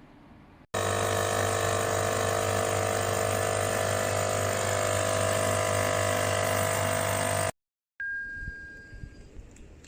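Nespresso Essenza Mini's pump buzzing loudly and steadily as it brews, with a strong low hum, for about seven seconds before cutting off abruptly. A short thin tone and a few faint clicks follow near the end.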